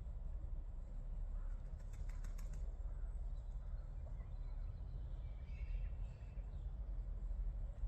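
A bird's wings flapping in a short, rapid flurry about two seconds in, with faint bird chirps and a steady low rumble throughout.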